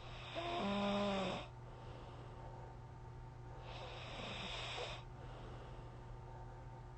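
A person snoring: a loud snore about a second long with a buzzing tone near the start, then a second, quieter snore about three seconds later.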